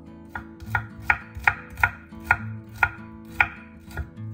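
Chef's knife slicing garlic cloves on a wooden cutting board: a steady run of sharp knocks, about two or three a second, as each cut strikes the board.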